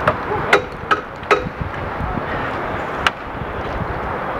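Inline roller hockey play: sharp clacks of sticks and puck, four in quick succession over the first second and a half and one more about three seconds in, over a steady background hiss.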